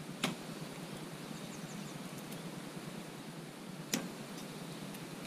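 Steady outdoor background noise with a few faint high chirps, broken by two sharp clicks: one just after the start and one about four seconds in.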